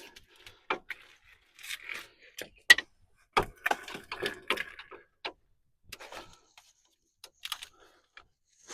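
Irregular clicks, clanks and knocks of tools and metal parts being handled during the work, with one sharp click standing out about three seconds in.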